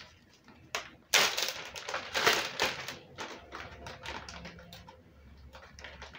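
Plastic zip-top freezer bag crinkling and rustling as it is pulled open and handled, with a short snap about a second in and the loudest crackling over the next two seconds.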